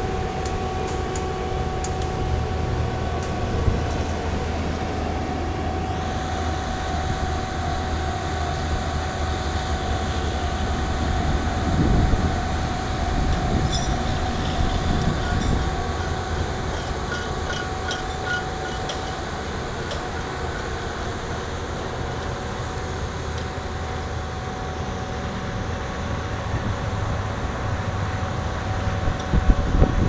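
Tracked soil-nail drill rig running: a steady engine drone with a thin high whine over it that fades out about two-thirds of the way through, and a few light metallic rattles near the middle.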